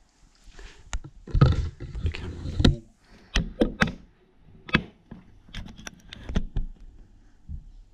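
Repeated thuds and knocks from the flat above, heard through the ceiling: a child running and jumping down onto the floor. A dense run of heavy thumps about a second in, then scattered single knocks.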